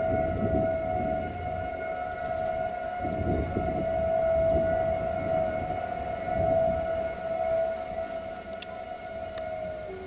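Air horn of a CFR class 060-DA (LDE2100) diesel-electric locomotive sounding one long, steady blast that sags in pitch and cuts off near the end, over a low rumble.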